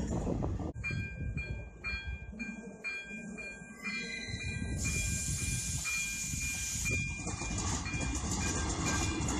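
Freight train rolling past briefly, then a railway level-crossing warning bell dinging about twice a second as a regional train approaches; from about five seconds in the train's rumble and wheel noise rise as it runs over the crossing.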